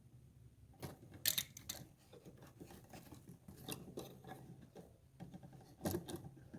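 Faint scattered clicks, scrapes and rustles of hands and tools working on an electrical outlet and its wiring, with the sharpest click about a second in.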